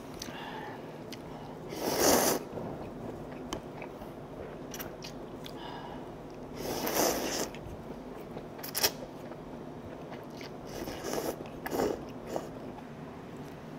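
A person eating stir-fried instant ramen noodles: loud slurps of noodles about two seconds in, again around seven seconds and twice near the end, with chewing between them and a sharp click about nine seconds in.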